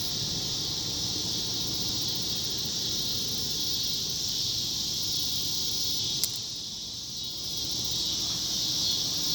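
Steady high-pitched chorus of insects, with a single sharp click a little over six seconds in.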